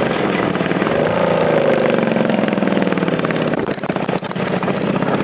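Racing lawn mower's 650cc engine running steadily, its note rising and easing once about a second in, with brief dips in loudness around four seconds in.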